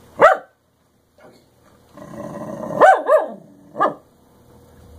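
English Cocker Spaniel giving short, pitched, yelping barks: one right at the start, then three in quick succession about three seconds in, with a rougher, lower sound under the first two of that group.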